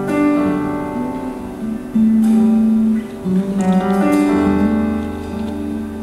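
Worship band playing a slow, soft guitar passage of held chords. A low bass note comes in at about four and a half seconds.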